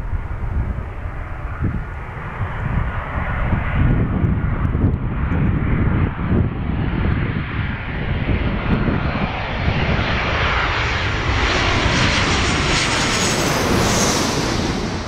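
Boeing 737-800's CFM56-7B turbofans on final approach, the jet noise and high engine whine growing steadily louder and brighter as the plane comes in low. It peaks as the plane passes overhead near the end, where the whine's pitch drops. Strong wind buffets the microphone throughout with a low, gusty rumble.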